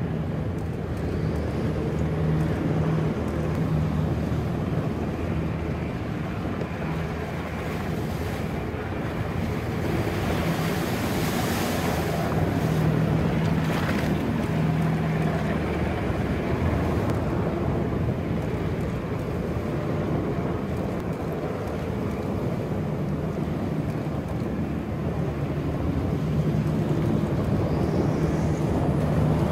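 Riverine command boat's engines running at speed with a steady hum, over rushing water and spray, with wind buffeting the microphone. A louder rushing hiss swells about ten to twelve seconds in.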